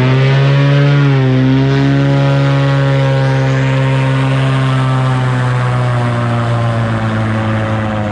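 A boat engine running loud and steady under way, its pitch shifting slightly about a second in, then holding and easing off a little toward the end.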